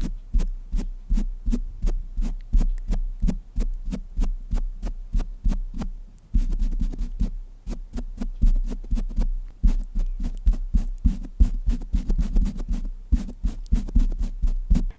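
Rapid soft patting and tapping close on the microphone, about five taps a second, each with a deep thud. There is a short pause about six seconds in.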